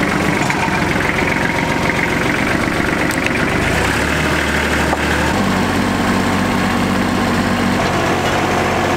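Orange compact tractor's engine running steadily as the tractor is driven, with a change in its low note around the middle.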